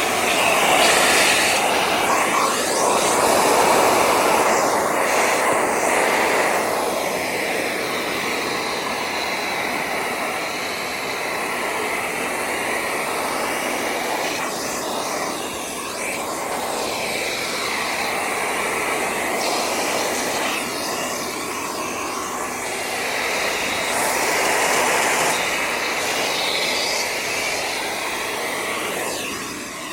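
AmazonBasics bagless vacuum cleaner running with a nozzle attachment, sucking dust out of a window's sliding track. Its steady rush of air rises and falls in pitch and loudness as the nozzle moves along the track.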